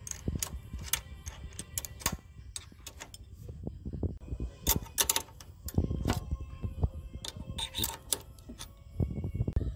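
Steel spanners and other hand tools clinking against motorcycle engine fittings and against each other: irregular sharp metallic clicks and knocks as a nut on the kick-start lever and engine cover is worked loose and tools are picked up and put down.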